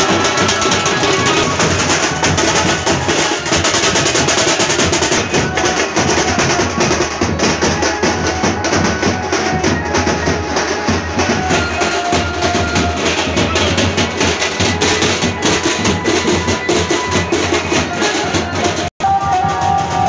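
Loud, drum-heavy band music with snare rolls and bass drum, played without a break except for a momentary cut shortly before the end.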